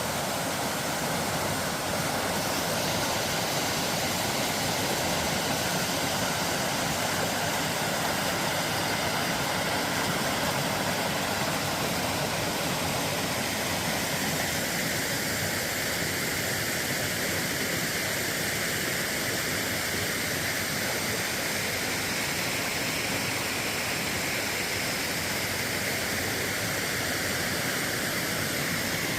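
Mountain stream water rushing steadily over rocks, a constant even rush.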